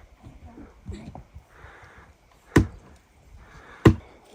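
Sharp knocking impacts: two loud strikes about a second and a quarter apart in the second half, with softer knocks and brief scraping hiss between them.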